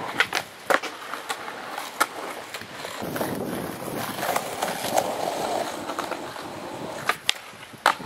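Skateboard on asphalt and a cinder-block ledge: sharp clacks as the board hits the ledge in the first second, wheels rolling between scattered clacks, and more sharp clacks near the end.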